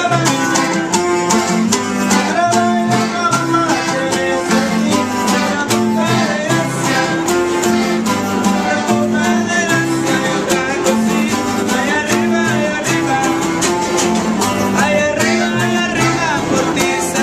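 A Mexican string band of acoustic guitars, one of them a twelve-string, plays a tune with a steady strummed rhythm over changing low bass notes.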